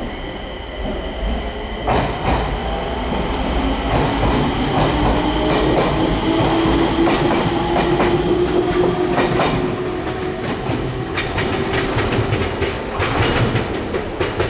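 Enshu Railway 2000-series electric train pulling away, its traction motors whining with a tone that rises slightly and then holds over a low rumble. Its wheels click repeatedly over rail joints in the later part.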